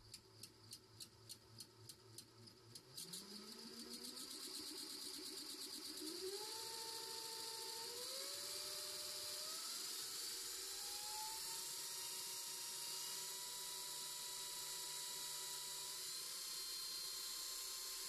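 Sailboat's rebuilt electric inboard motor spinning up on its first test run. It ticks about four times a second, quickening, at slow speed. From about three seconds in a motor whine rises in steps as the throttle is advanced, then holds at a steady pitch from about eleven seconds on.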